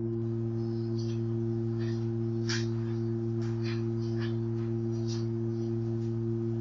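A steady, unwavering low tone with two higher overtones, switched on abruptly with a click just before and holding one pitch throughout, with faint scattered ticks on top.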